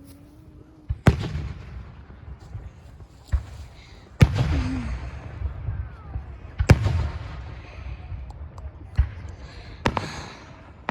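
Aerial fireworks bursting: four loud booms about one, four, six and a half and ten seconds in, each followed by a rumbling echo and crackle, with a few smaller pops between them.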